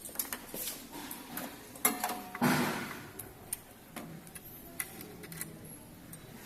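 EDM hole-drilling machine at work: irregular ticking and clicking, with one louder hissing burst about two and a half seconds in that fades within half a second.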